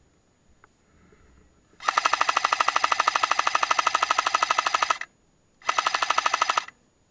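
Airsoft PKM-style replica machine gun firing two full-auto bursts with a fast, even rattle: a long burst of about three seconds, then after a short pause a burst of about a second.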